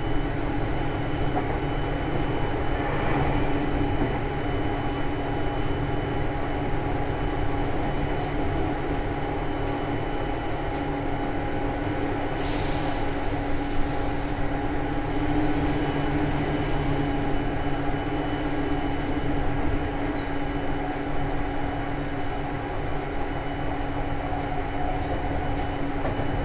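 Seibu 2000 series electric commuter train running, heard from inside the car: a steady rumble of wheels and motors with a constant hum, and a short hiss lasting about two seconds about halfway through.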